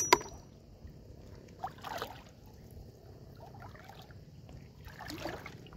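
Light splashing of shallow water, a few soft splashes about two seconds in and again near the end, after two sharp clicks at the very start.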